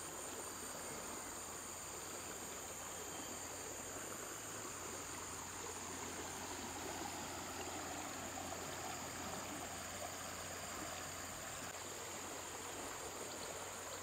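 Fast-flowing hill river running steadily, with a continuous high-pitched insect drone over the rush of water.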